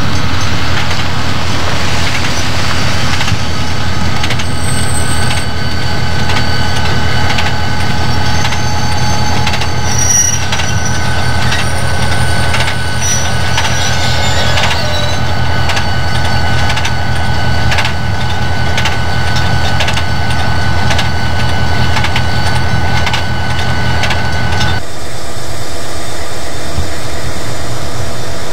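Chicago & North Western diesel locomotives running past, with a steady low engine drone and regular clicking about once a second, typical of wheels crossing rail joints. About 25 s in the sound cuts abruptly to a quieter, thinner rumble.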